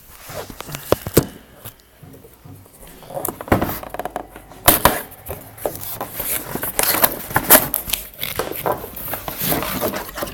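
Cardboard boxes and packaging being handled and opened: irregular rustling, crackling and knocking, busiest from about three seconds in.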